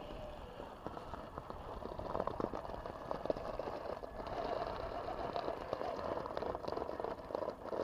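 Electric drivetrain of a Traxxas TRX-4 Sport RC crawler whining under load as it climbs a steep dirt bank, the whine strongest in the second half, with tyres crunching and clicking over dirt, twigs and bark.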